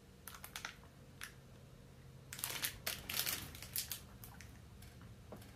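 Plastic snack-cake wrapper crinkling as the package is handled and shifted in the hands. There are a few short crackles in the first second or so, then a denser run of crinkling in the middle, and a few more near the end.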